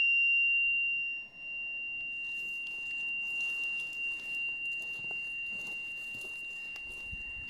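A struck tuning fork ringing with a single steady high tone that slowly fades.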